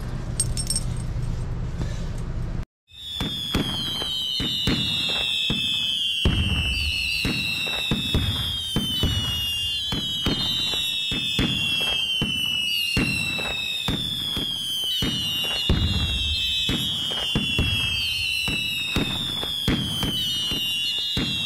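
Fireworks: high whistles gliding down in pitch, one about every two seconds, over a steady crackle of sharp pops and bangs. They start about three seconds in, after a brief cut to silence.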